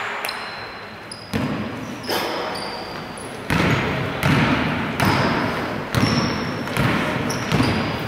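Basketball being dribbled on an indoor court, about one bounce a second, each bounce ringing in the hall, with short high squeaks of sneakers on the floor between bounces.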